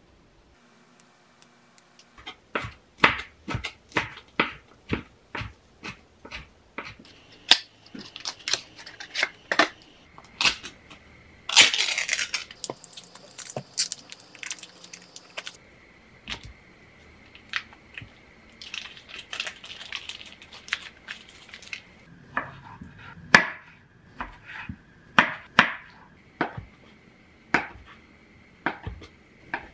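Kitchen knife chopping on a wooden cutting board, a run of sharp separate knocks as herb leaves are cut. About twelve seconds in, a loud crinkling as the foil wrapper of a wedge of brie is torn open, then more knife strokes against the board as cherry tomatoes and brie are sliced.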